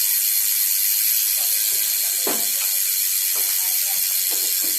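SRAM X9 bicycle rear hub's freehub pawls ratcheting steadily as the wheel coasts, with several short knocks in the second half.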